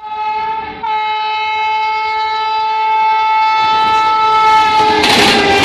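WAP-7 electric locomotive's horn: a short blast, then a long steady one. Near the end the horn's pitch drops slightly as the locomotive passes at speed, and loud wheel clatter and rushing noise from the train take over.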